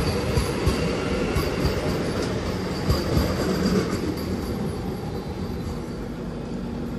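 Rail noise heard from an open coach door as a Vande Bharat Express train runs past close alongside on the adjacent track: a steady rumble of steel wheels on rails with a hiss of air, slowly easing off as the passing train moves away.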